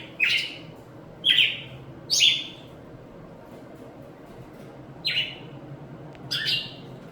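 A bird giving five short, loud calls, each a quick falling sweep, unevenly spaced, over a steady low background hum.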